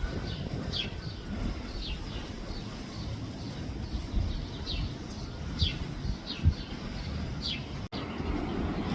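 A small bird giving short, high chirps that drop slightly in pitch, repeated irregularly over a steady low background rumble; the sound cuts out briefly near the end.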